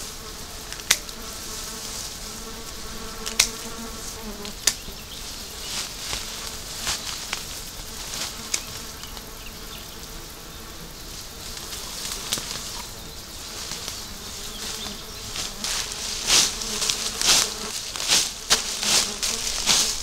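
A fly buzzing close by for the first few seconds, with a few sharp snaps of twigs. About fifteen seconds in comes a quick run of loud rustling and crackling as leafy branches and grass are handled and leaves are picked.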